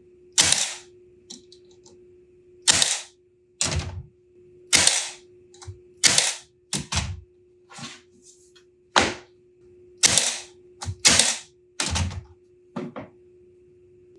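Cordless Milwaukee brad nailer firing brads into the glued joints of a wooden drawer box: a string of sharp cracks, roughly one a second at irregular spacing. Some strokes carry a heavier low knock of the wood under the blow.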